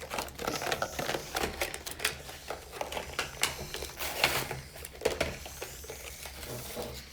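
Plastic toy packaging and wrappers crinkling, with irregular clicks and taps as they are handled and opened.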